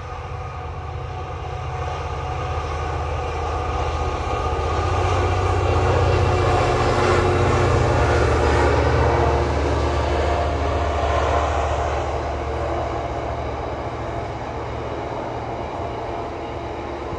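Intermodal container freight train passing: the locomotive's low drone builds to its loudest about halfway through, then eases into the steady rumble of the container wagons rolling by.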